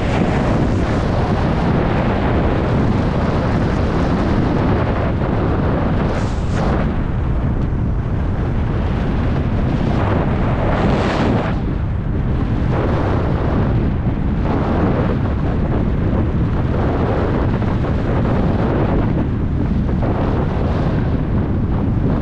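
Wind rushing over the microphone during a downhill ski run, with the hiss of skis sliding on snow that swells brighter in a few turns, about six and eleven seconds in.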